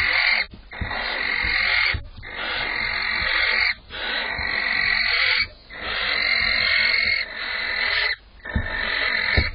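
Barn owl giving a series of long rasping hisses, each one to two seconds long with brief gaps, the hissing 'snore' call a barn owl uses to beg or to get its mate's attention. A dull knock sounds just before the end.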